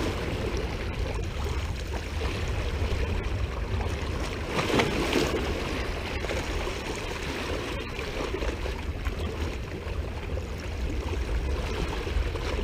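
Seawater lapping and splashing against boulders at the water's edge, with one louder wash about five seconds in, over a steady low rumble of wind on the microphone.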